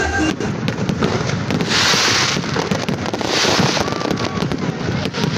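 Fireworks crackling and popping in a dense, continuous stream, with two louder rushes of hiss about two and three and a half seconds in.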